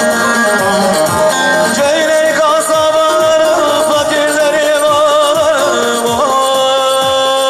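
Turkish folk dance tune (oyun havası) of the Teke region, played live. A long held melody line wavers and slides in pitch over a steady beat.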